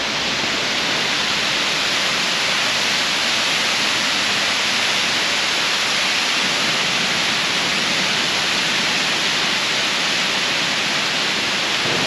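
Waterfall pouring down a rock face: a loud, steady, even rush of falling water.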